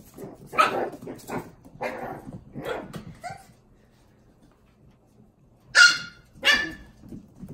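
Poodle puppies barking in short barks while playing: a quick run of barks in the first three seconds, a pause, then two loud barks near the end.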